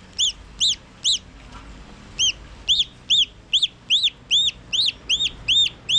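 Newly hatched turkey poult peeping loudly and insistently: a run of high peeps, each rising then falling in pitch, about two or three a second, with a pause of about a second after the first three.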